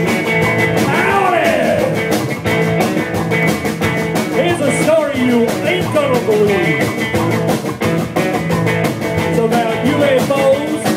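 Live rockabilly band playing: electric guitar lead with gliding, bent notes over a drum kit and upright double bass.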